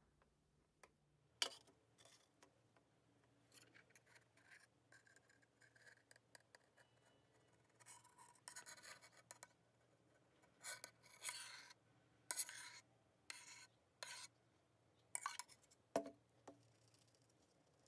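Faint handling noise of a metal pot as thick whipped candle wax is poured and scraped out of it into a mold: short bursts of scraping and rubbing, with a few sharp clicks, one near the start and one near the end.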